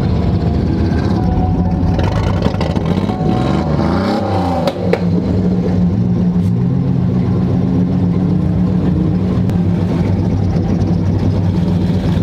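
Truck engines running, several at once, with pitches rising and falling as they rev about three to five seconds in and again a few seconds later.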